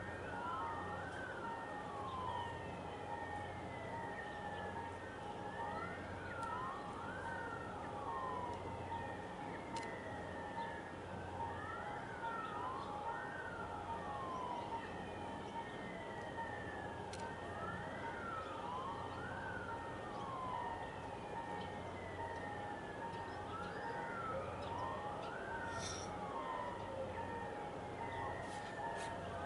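A wailing siren with its pitch sweeping up and down over and over in overlapping rises and falls. Under it runs a steady low hum.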